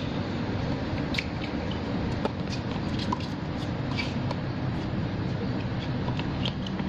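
Tennis rally on a hard court: sharp racket-on-ball hits and ball bounces about a second apart, with short squeaks from players' shoes, over a steady low rumble.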